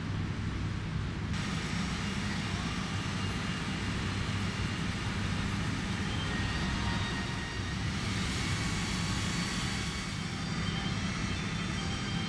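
TOS Kuřim FRF 300-V/A6 gantry milling machine running: a steady mechanical hum with a rushing hiss over it, brighter from about a second in and again from about eight seconds in, with a faint high whine.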